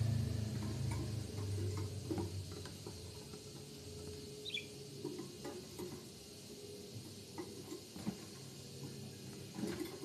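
Pet budgerigar shuffling on a wire cage top, making faint scattered clicks and scratches, with one brief soft chirp about four and a half seconds in.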